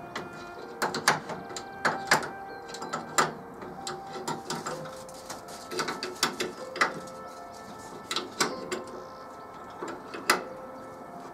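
Hand tools clicking and knocking against the chrome front bumper of a Morris Minor as the overriders are bolted on: sharp, irregular metallic clicks about once or twice a second.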